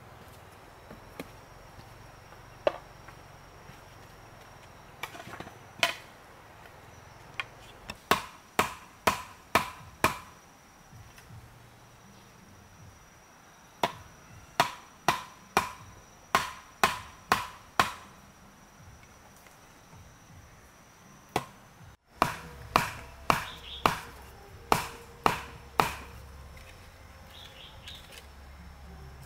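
Split bamboo slats being driven into the ground with a wooden mallet: sharp, hollow knocks in runs of five to eight strikes, about two a second, with pauses between the runs.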